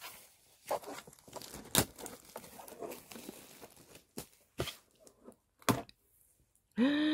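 Cardboard and paper handling as a photobook box is opened and its inserts are moved: rustling, with several sharp taps and knocks. Right at the end a loud pitched sound begins, sliding down in pitch.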